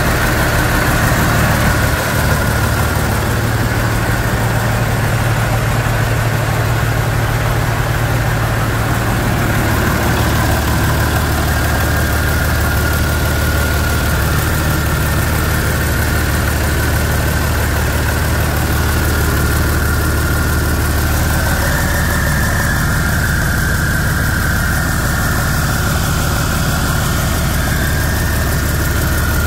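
John Deere 6068TF 6.8-litre turbocharged inline-six diesel engine running steadily on a test run.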